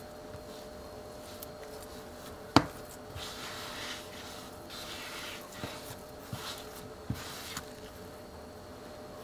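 Bread dough being kneaded by hand on a floured countertop: a sharp thump about two and a half seconds in, then soft scraping and pressing of the dough against the counter with a few light knocks.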